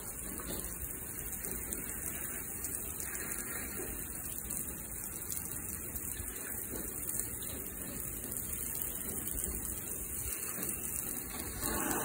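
Hose spray nozzle hissing steadily as a jet of water is sprayed over a folding bicycle, the water hitting its frame and wheels; a little louder near the end.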